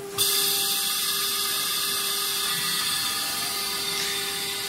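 Gantry of a CNC router's automatic labelling unit travelling along its rails, its servo drive and gearing giving a steady mechanical whir that starts abruptly about a quarter second in.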